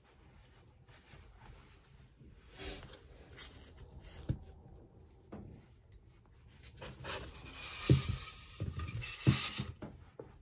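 Clothing fabric rustling and rubbing as a costume vest and tie are adjusted close to the microphone. The rustling gets louder over the last few seconds, with two sharp knocks near the end.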